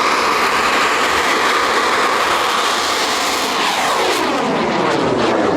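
A bang fai black-powder rocket's motor at launch: a loud, steady rushing noise whose tone starts sweeping downward about three and a half seconds in as the rocket climbs away.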